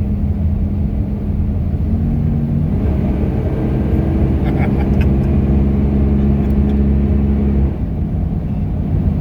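1993 GMC Sierra K1500 pickup driving and accelerating. The engine pitch steps up about two to three seconds in, holds steady, then eases off near the end. It pulls smoothly without hesitating after its fuel system replacement.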